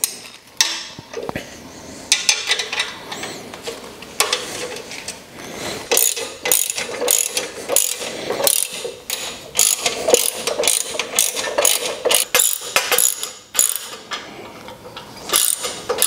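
Socket ratchet wrench clicking as the bolts holding a reel mower's handle are tightened. The clicks are scattered at first, then come in quick repeated runs from about six seconds in.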